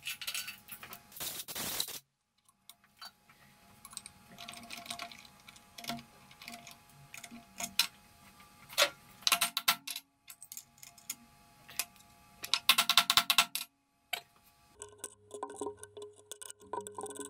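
Scattered clicks, knocks and rattles of hand work on a CNC mill: a nylon block being set and clamped in a steel machine vise, then a probe being fitted into the spindle. The sounds come in short separate bursts, with a dense clatter of clicks near the end, and a faint steady hum with a held tone under the last couple of seconds.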